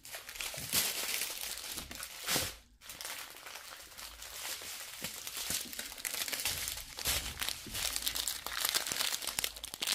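Small sealed plastic bags of diamond-painting drills crinkling as a string of them is handled, with a brief pause just under three seconds in.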